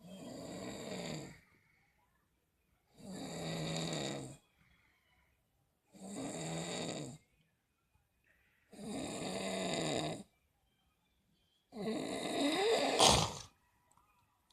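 Snoring: five long snores about three seconds apart, the last one the loudest and ending with a sharp click.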